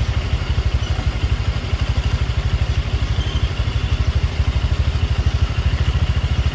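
An engine idling: a steady, fast low throb with an even beat.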